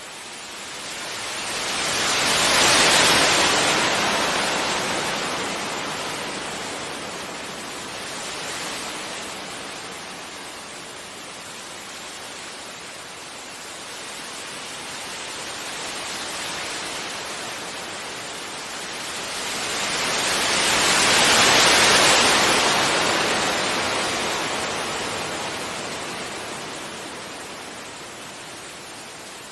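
Sea waves breaking gently on a beach. The surf rises in two big swells, one about three seconds in and another near twenty-two seconds, with smaller washes between; each builds fairly quickly and fades away slowly.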